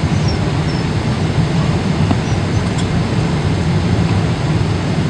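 Steady, loud rumble of a Boeing 777 airliner heard from inside the passenger cabin during landing.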